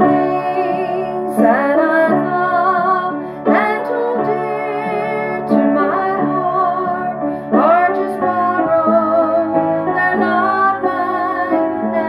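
A woman singing a gospel hymn while accompanying herself on piano, her voice held with vibrato over piano chords struck about every two seconds.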